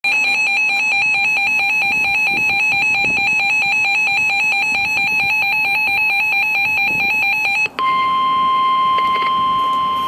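Emergency Alert System alert tones: a rapidly warbling electronic alarm tone, switching about three-quarters of the way through to a single steady tone, signalling a severe thunderstorm warning broadcast.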